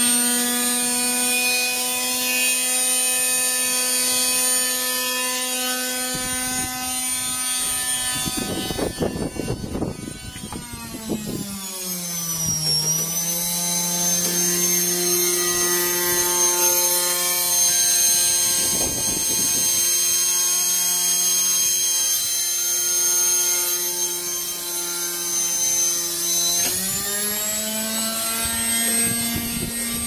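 Wrecked washing machine's drive motor running on, a steady whine that drops in pitch about eleven seconds in and climbs back near the end. There are short rough scraping noises about 9 and 19 seconds in.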